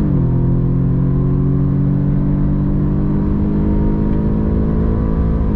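Audi S3's 2.0-litre turbocharged four-cylinder engine at full throttle during a launch-control run, its pitch climbing slowly as it pulls through one gear. The revs drop at an upshift right at the start and again at the very end.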